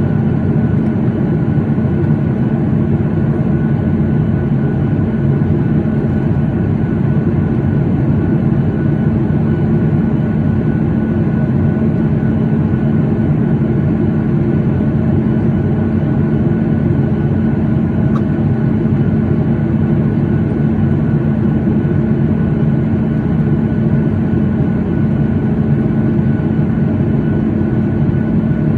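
Steady cabin noise inside a Boeing 737-8: a constant low hum from the CFM LEAP-1B engines and air system, with a faint high whine, unchanging throughout.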